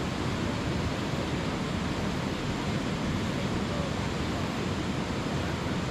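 Steady, even rushing noise of a storm, with no thunderclap in this stretch.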